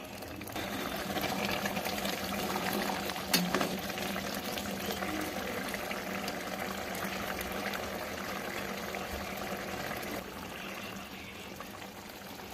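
Egg curry gravy simmering in a pan, a steady bubbling hiss, with one light clink about three seconds in.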